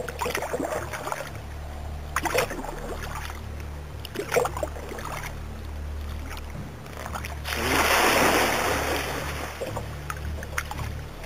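Kayak paddle dipping into calm water every couple of seconds, over a steady low rumble. About seven and a half seconds in comes a loud rushing splash lasting about two seconds: a startled alligator surging away through the water ahead of the kayak.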